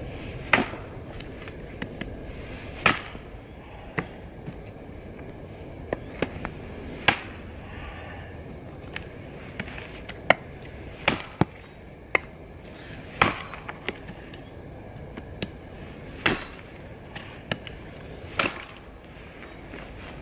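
Bark River Bravo Crusader chopping knife striking a dead wooden branch again and again: sharp, irregularly spaced chops about a second or two apart, some blows much harder than others.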